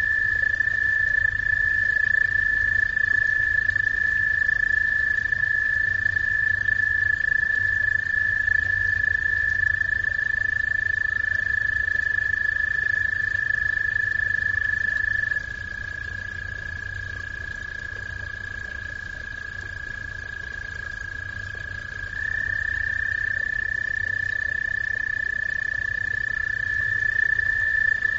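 Frogs trilling: one continuous high trill from several overlapping callers. It drops a little in loudness about halfway through and picks up again, with new trills sliding in near the end.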